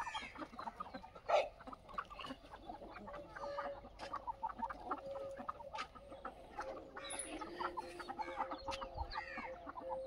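Desi (native free-range) chickens clucking, many short soft clucks overlapping from several birds.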